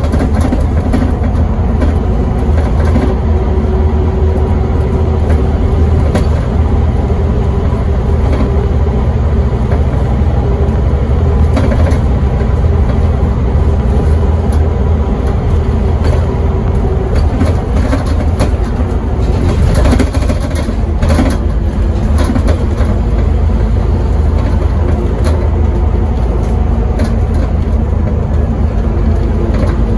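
Scania N270UD double-decker bus's five-cylinder diesel and drivetrain heard from inside the saloon while under way at speed: a loud, steady low drone with road noise. A steady whine runs through the first half and fades around halfway, and a few brief rattles come about two-thirds in.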